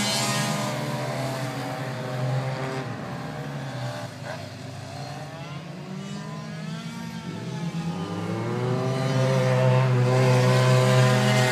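Racing sport motorcycles lapping a circuit: one bike's engine note falls and fades as it pulls away, then another approaches with its revs climbing and its engine growing loud near the end.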